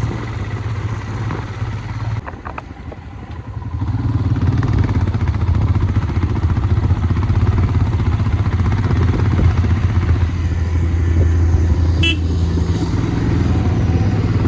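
Royal Enfield Himalayan motorcycle's single-cylinder engine running under load, easing off briefly about two seconds in, then pulling harder and louder from about four seconds on. A short high beep comes near the end.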